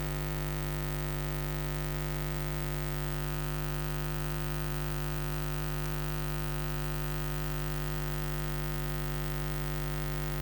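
Steady electrical hum and buzz with hiss, made of many unchanging tones and never varying in level: noise from a faulty or unconnected audio feed rather than any live sound.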